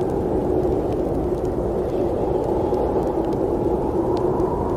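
Snowstorm wind ambience: a steady low rushing with no breaks, and a few faint ticks above it.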